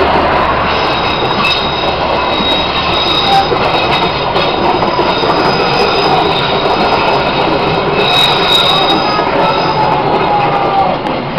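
Passenger coaches of a train running through the station without stopping: a loud, steady rush of wheels on rails with a thin high squeal from the wheels and scattered clicks. It eases slightly near the end as the last car goes by.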